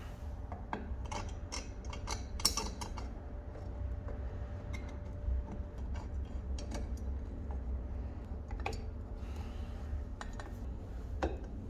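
Scattered small clicks and taps of a wooden handle and its metal bracket being handled and fitted together on an antique cast-iron charcoal iron, a quick run of them about a second in and sparser ones later, over a low steady hum.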